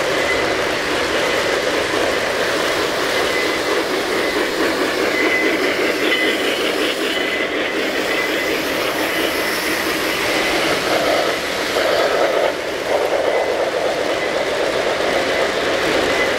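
O-gauge three-rail model trains running past on the track: a steady rolling rumble and clatter of wheels and motors.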